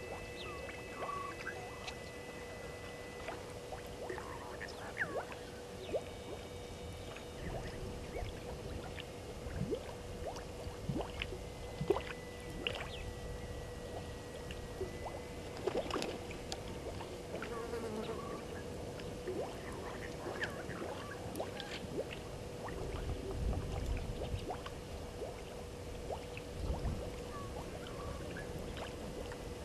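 Bush ambience from a waterhole microphone: a steady insect drone with a fainter high steady tone over it, and scattered light clicks and knocks. A low rumbling comes in for a few seconds near the end.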